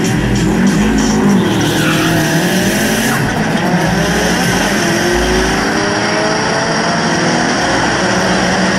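Subaru Impreza's engine pulling hard from a standing start down a drag strip, its pitch climbing as it revs.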